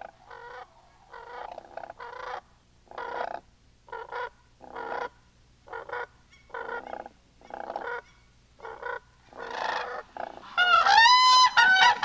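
Whooping cranes calling: a string of short, rough calls about once a second, then near the end loud, clear bugling calls that rise and fall in pitch.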